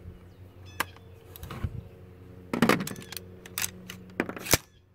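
AR-15 rifle being bumped and handled: a series of sharp metallic clacks and knocks, the loudest cluster about two and a half seconds in.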